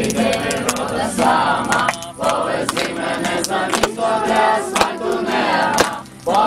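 A group of mixed voices singing together in unison, breaking off briefly between phrases about two seconds in and again near the end.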